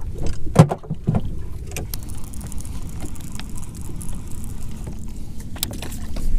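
Steady low rumble of wind and rippling water around a fishing boat, with a few sharp knocks and rustles of hands and gear being handled, the loudest about half a second in.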